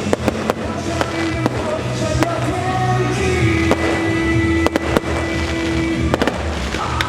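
Fireworks bursting in a string of sharp, irregular bangs over loud music.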